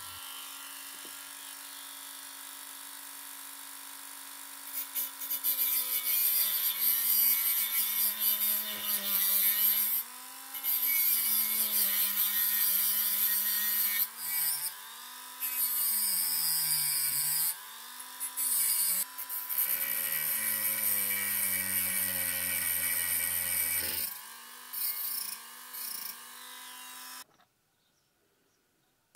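Handheld rotary tool with a thin cut-off disc grinding the tip of a steel screwdriver bit, shaping it into a triangular driver bit. The motor whines steadily, its pitch sagging and wobbling as the disc bears on the metal, with long stretches of grinding hiss broken by brief pauses, and it cuts off a little before the end.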